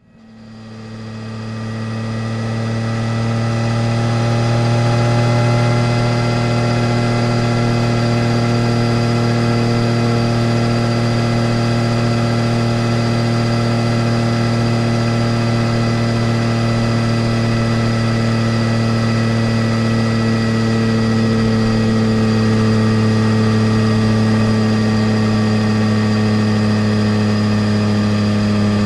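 Yamaha Tracer 900 GT's 847 cc inline three-cylinder engine idling steadily through a full Roads Italia aftermarket exhaust, heard from under the passenger seat. The sound fades in over the first few seconds, then holds an even pitch without revving.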